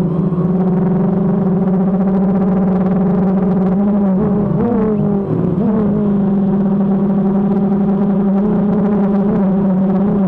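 DJI quadcopter's electric motors and propellers humming steadily, the pitch dipping and wavering for a couple of seconds in the middle as the drone changes speed and turns.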